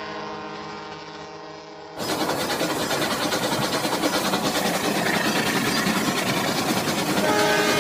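Battery-powered toy trains running on plastic track. For about two seconds an electronic horn tone fades out. After that comes a louder, steady motor buzz and wheel rattle, and a horn tone starts again near the end.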